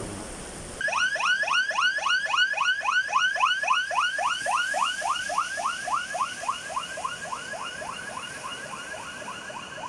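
Emergency siren on a civil protection pickup truck in yelp mode: rapid rising sweeps, about three to four a second, starting about a second in after brief rain noise and fading a little toward the end.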